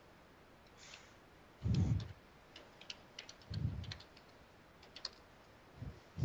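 Computer keyboard typing and clicking in scattered keystrokes, broken by a few short low muffled thumps that are louder than the keys.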